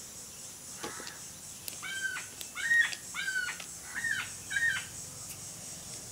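A bird calling about five times, each a short arched note with a clear ringing tone, in a quick run of three and then two, over a steady high hiss.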